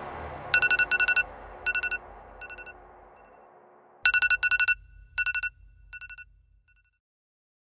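Digital alarm clock beeping in quick bursts of rapid electronic pulses. Each burst is followed by fainter echoing repeats that die away, and a second loud round starts about four seconds in. The tail of fading music lies under the first second.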